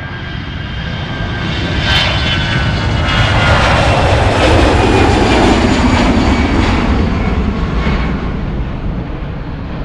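An airplane flying past: its engine noise swells to a peak about halfway, then fades, with the pitch dropping as it passes.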